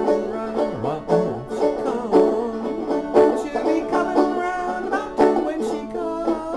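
Five-string banjo with a capo at the second fret, picking a steady tune in the key of D from C-chord shapes.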